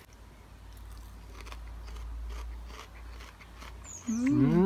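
A person biting into and chewing crisp batter-fried elderflower fritters, with faint crunches. Near the end a voice makes a wordless sound for about a second, rising then falling in pitch.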